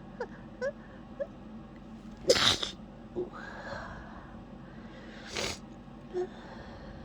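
A person sneezing once, loudly and suddenly, about two seconds in, after a few short catching breaths as the sneeze builds. A breathy exhale follows, then a short, quieter sniff about five seconds in.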